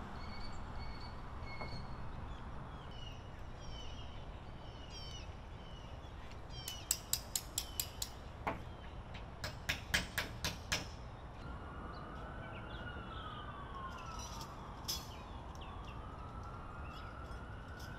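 Hammer driving nails into a plywood board fastened over a window: two runs of quick, sharp strikes, about seven and about ten seconds in. Birds chirp before the hammering, and a distant siren wails, rising and falling, through the last several seconds.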